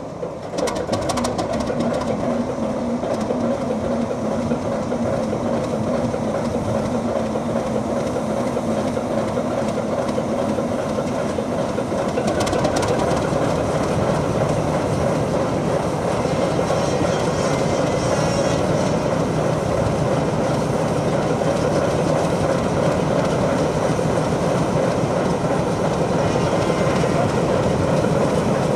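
ČKD T669 diesel locomotive's six-cylinder engine running steadily as the locomotive stands coupled to its freight train; its note shifts lower about halfway through.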